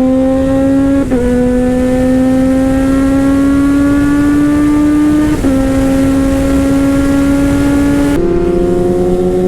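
Kawasaki Z H2's supercharged inline-four running loud through an Orion aftermarket exhaust under acceleration. The engine note climbs slowly in pitch, with short breaks where the pitch jumps at the gear changes: about a second in, a little past halfway, and near the end.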